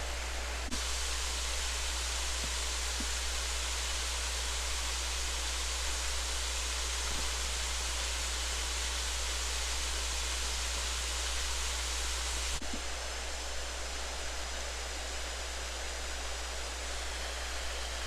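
Creek water rushing steadily over a concrete-and-stone mill dam: a constant hiss with a steady low rumble underneath, a little softer in the highs after about twelve seconds.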